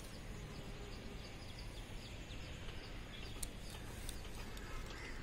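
Faint outdoor background noise with small birds chirping softly and intermittently.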